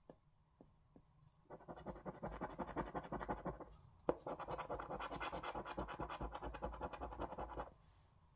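A coin scratching the coating off a scratchcard. There are two spells of rapid back-and-forth scraping, the second starting with a sharp tap about four seconds in.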